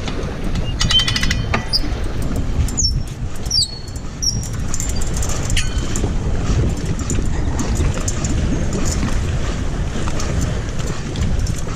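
Wind buffeting the microphone. Over it come clicks and short high squeaks from a dock's boat-lift winch as its hand wheel is cranked to lower a jet ski, most of them in the first half.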